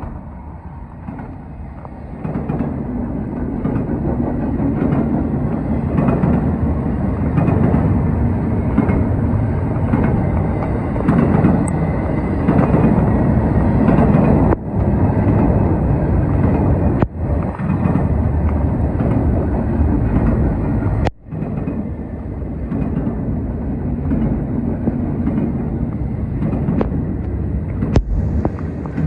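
Norfolk Southern train rolling past, a steady loud rumble of wheels and cars on the rails. The recording is dull and distorted from rain in the phone's microphone, and cuts out briefly three times, around 14, 17 and 21 seconds in.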